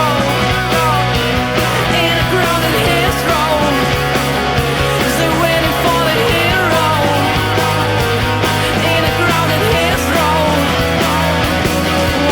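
Rock music soundtrack playing loudly, a band passage without words and with a bass line that changes note twice.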